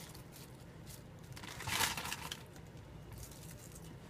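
Curly kale leaves rustling and crinkling as a hand presses them down into a pot of sauced lasagna layers, loudest about two seconds in.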